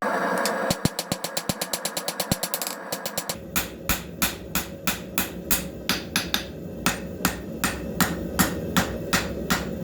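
Hammer blows on a hot forge-welded cable-damascus billet on the anvil, drawing and flattening the steel: a quick, even run of strikes, a little slower and heavier from about three seconds in at roughly three a second, over a steady low rush.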